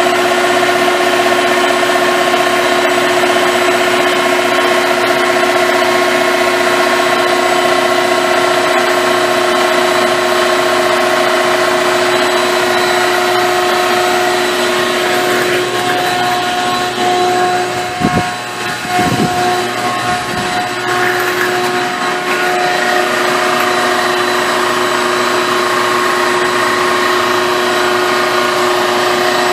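Car engine idling steadily, heard from underneath, with several steady whining tones over its running noise. The crankcase is sealed, with the PCV valve and breather blocked, so blow-by pressurizes it to push oil out of the leak. A few dull bumps sound a little past halfway.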